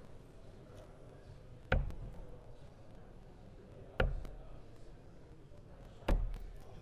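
Three steel-tip darts striking a Winmau Blade 6 bristle dartboard one after another, each a short sharp knock, a little over two seconds apart.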